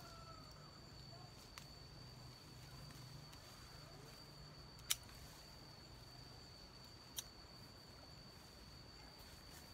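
Faint outdoor background with a steady thin high tone and a low hum, broken by two sharp clicks about two seconds apart near the middle.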